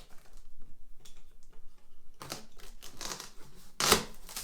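Packaging of a PC case being handled and opened: crinkling and rustling, in uneven bursts, with a sharp, loud crackle just before the end.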